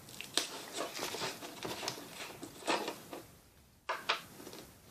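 Light clicks, taps and rustling as a plastic gallon jug of glue is handled and its cap opened, with two sharper clicks about four seconds in.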